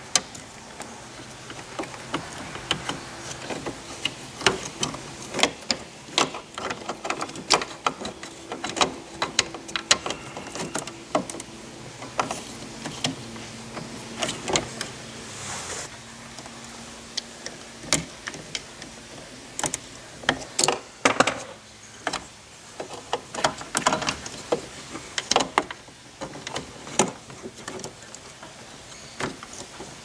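Irregular clicks, taps and light rattles of plastic parts and cable being handled as the new sliding-door cable and tensioners are fitted around the drive spool of a Honda Odyssey power sliding door motor, over a faint steady hum.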